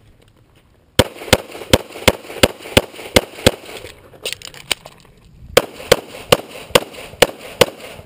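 Pistol fire from a .40 S&W EAA/Tanfoglio Witness Elite Match during a USPSA stage: quick strings of shots about three a second, starting about a second in, with a short break near the middle before a second string.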